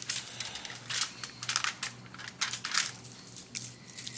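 Spice jar with a perforated shaker lid shaken over fish lying on aluminium foil: a run of short, irregular rattling shakes as the seasoning scatters onto the fish and foil.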